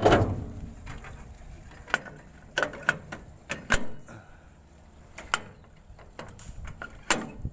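Engine hood of a SANY excavator pushed shut with a heavy thud at the start, then a series of sharp metal clicks and knocks as its latch is worked by hand.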